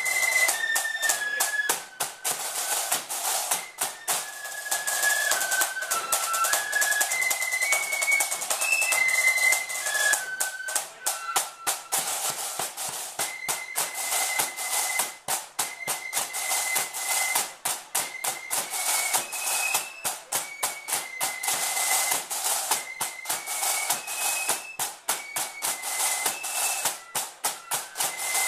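Flute band playing: high flutes carry a stepping melody over snare drums beating fast, dense rhythms.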